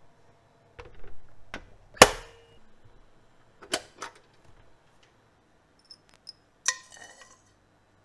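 Handling knocks from a Sharp rice cooker. A loud metallic clunk with a short ring about two seconds in, then two clicks as the cook switch is pressed down to start cooking, and another clack near the end.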